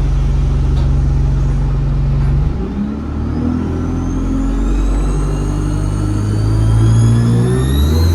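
ADL Enviro 200 bus's diesel engine running steadily, then pulling away: the engine note climbs and a high turbo whistle rises in pitch with it over several seconds. Near the end the note shifts as the gearbox changes up.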